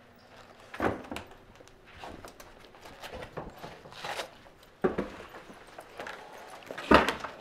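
Football helmets and shoulder pads knocking and clattering against wooden lockers as players hang helmets and pull on pads: a few sharp knocks with smaller clatter between, the loudest thump near the end.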